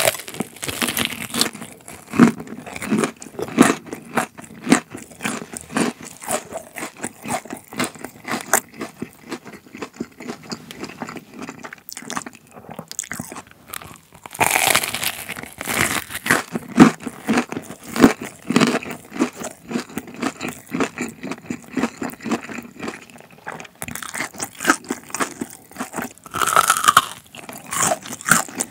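Close-miked crunchy biting and chewing of a Korean potato corn dog, a hot dog coated in fried diced potato cubes. Louder crunching bites come at the start and again about halfway through, with crackly chewing in between.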